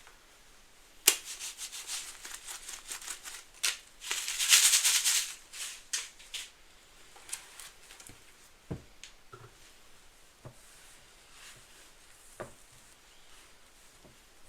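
Soapy sponge full of Fabuloso cleaner and Mr. Bubble suds being squeezed, the foam crackling and fizzing. The crackle comes thick from about a second in, swells to a loud hissing rush between four and five and a half seconds, then thins to scattered pops.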